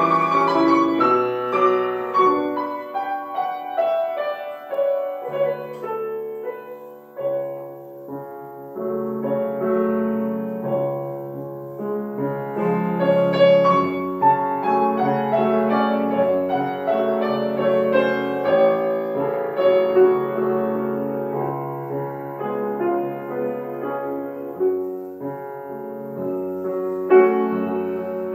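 Grand piano played solo: a slow classical piece with sustained low notes under a melody, growing fuller and louder near the end.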